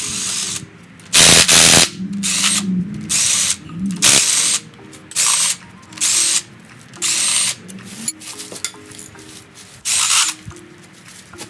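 Power tool run in about nine short bursts, each under a second, the loudest about a second in, loosening the rocker arm bolts on a Chevy LS 6.0 V8's cylinder head. Background music plays underneath.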